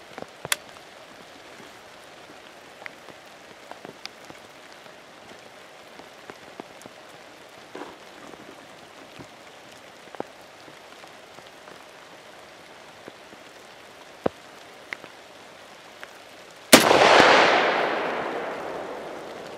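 Steady rain falling, with scattered drops ticking. About 17 seconds in comes a single shot from a Norinco M305 semi-automatic rifle in .308 Winchester, its echo rolling away over a couple of seconds.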